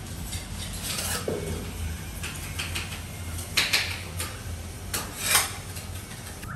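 Scouring pad scrubbing across glazed ceramic wall tiles in short, uneven strokes, wiping grout haze off freshly grouted tiles. A few louder scrapes come about three and a half and five seconds in.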